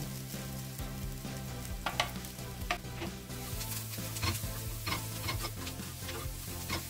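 Chopped onions and ground spices frying in oil in a nonstick pan, sizzling steadily while a spatula stirs them, scraping and clicking against the pan again and again.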